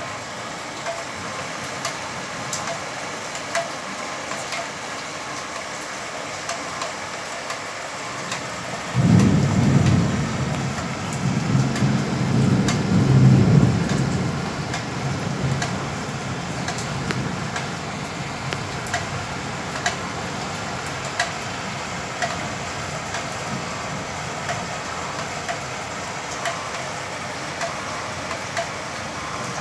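Heavy rain falling, with many small drop ticks, over floodwater rushing along a street. About nine seconds in, a low rumble starts suddenly and fades over some five seconds.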